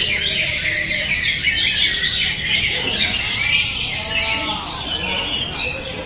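A dense chorus of many caged greater green leafbirds (cucak hijau) singing at once, with overlapping chirps and rapid trilled phrases running without a break.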